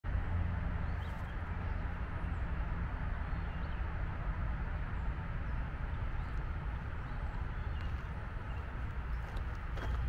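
Woodland ambience: a steady low rumble with an even hiss, and a few faint, brief high bird chirps.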